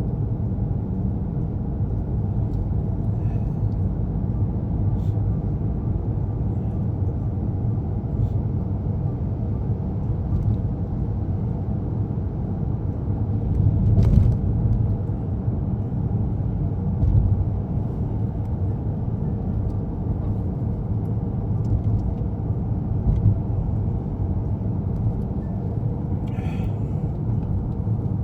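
Steady low rumble of a car driving, heard from inside the cabin, with a single sharp click about halfway through.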